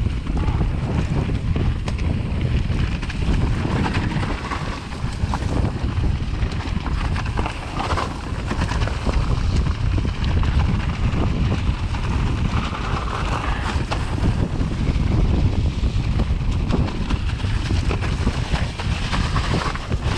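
Wind buffeting the microphone in a continuous low rumble, with many small knocks and rattles throughout, as from riding over rough ground.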